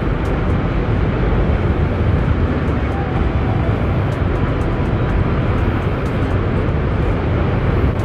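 Steady rush of Niagara's Horseshoe Falls, a heavy continuous wash of falling water with a deep low rumble.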